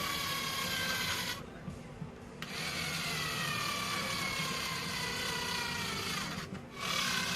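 Power drill driving screws into the washing machine's bottom cover: one short run, a brief pause, then a run of about four seconds, with another starting near the end. The motor whine sags slowly in pitch as each screw tightens.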